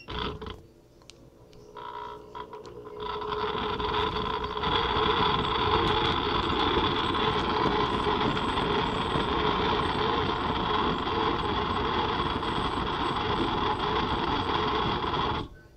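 Fun Kitchen soup maker's blender motor running on its mix setting, churning soup in which the potato pieces are still hard. After a couple of short sounds it spins up about three seconds in, runs steadily and stops suddenly near the end.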